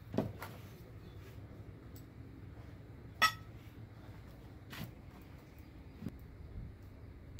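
A few sharp metallic clinks and knocks from steel tools and engine parts being handled during piston removal. The loudest comes about three seconds in and rings briefly.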